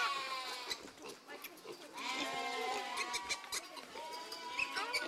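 Young goats bleating repeatedly while begging for bottle milk at a fence: a call trailing off at the start, a longer wavering one about two seconds in, and another near the end.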